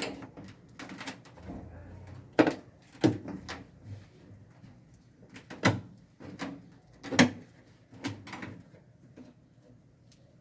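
Irregular knocks and clatter from handling a washing machine and the boards placed under it, with several sharp thumps, the loudest about two and a half, five and a half and seven seconds in.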